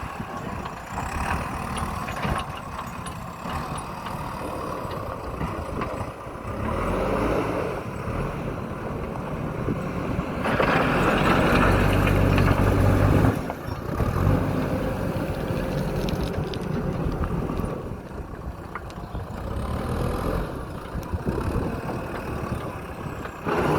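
JCB backhoe loader's diesel engine running, rising twice in revs as it works: briefly near the first third, then louder for about three seconds in the middle before dropping back.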